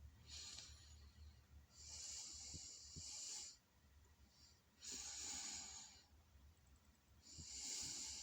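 A person's quiet, hissing breaths, four of them a second or two apart, each lasting about half a second to a second and a half.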